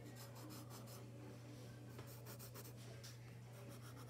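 Faint scratching of a graphite wooden pencil on paper in quick, uneven strokes as it goes over and darkens a sketch's outlines, over a steady low hum.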